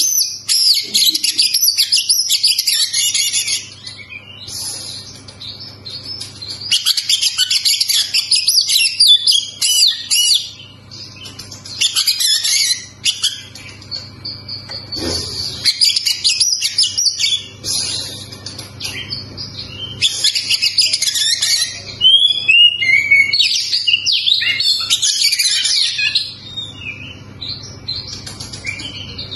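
Oriental magpie-robin singing a loud, rapidly varied song of high whistles and chatters in phrases of a few seconds, with short pauses between them.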